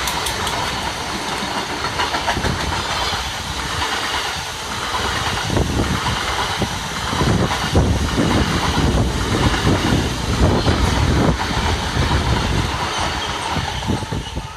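A train passing close by, its wheels clattering over the rail joints with a steady hiss of rolling noise.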